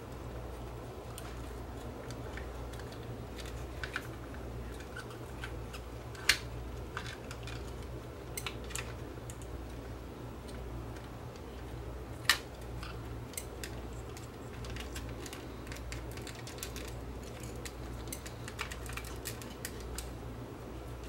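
Small plastic clicks and taps as a clear plastic clock housing and its circuit board are handled and fitted back together, with two sharper snaps about 6 and 12 seconds in. A steady low hum runs underneath.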